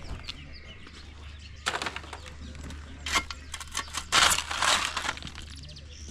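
Broken concrete being dug out and shifted, with irregular crunching and scraping bursts and one sharp knock near the middle.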